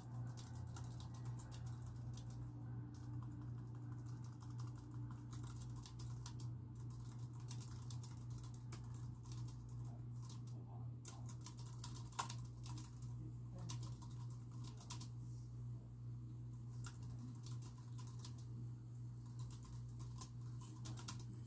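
Typing on a computer keyboard, keys clicking in quick irregular runs with short pauses, over a steady low hum.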